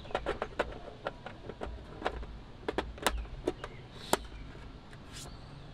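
Plastic clicks and taps of a black solar post-cap top being handled and pressed down onto its base: many quick irregular clicks, the sharpest about three and four seconds in.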